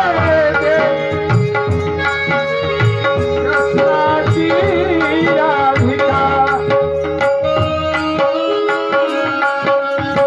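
Marathi kirtan viraha geet (song of separation): tabla keeping a steady beat under long held instrumental notes, with a singer's voice sliding through ornamented phrases near the start and again around the middle.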